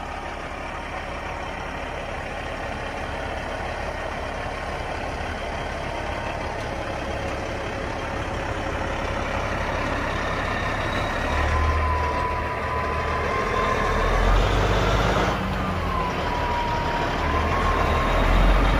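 Caterpillar 3406E inline-six diesel of a Kenworth W900L semi truck pulling away with its trailer and driving past, the engine getting louder and swelling several times in the second half, with a wavering whine.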